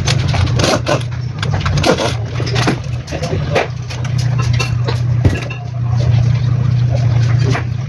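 A steady low engine drone, with many irregular knocks and clanks over it; the drone dips briefly about three seconds in.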